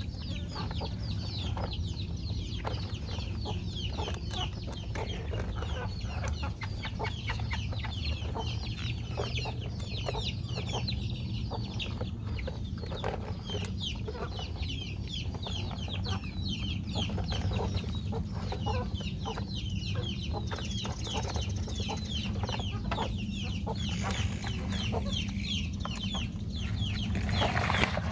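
Birds chirping in a dense, unbroken run of short falling chirps over a low steady hum, with small clicks and scrapes from a plastic toy excavator digging dirt.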